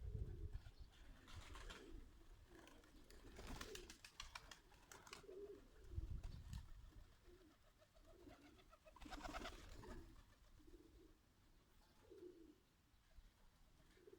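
Birmingham roller pigeons cooing softly and repeatedly. Two short bursts of rapid clatter come about three and nine seconds in.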